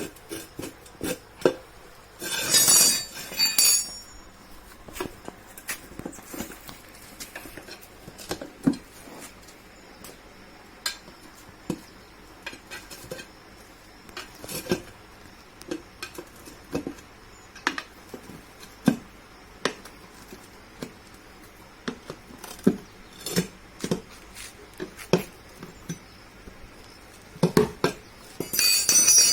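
Irregular metallic clinks, taps and knocks of hand tools working on a scooter wheel rim and tubeless tyre, with a short rushing noise about two and a half seconds in and another near the end.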